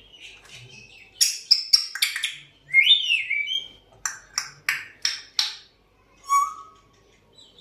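African grey parrot vocalizing: a run of sharp clicks and chirps, then a whistle that rises and falls, followed by a quick series of five short noisy calls and a brief low whistle near the end.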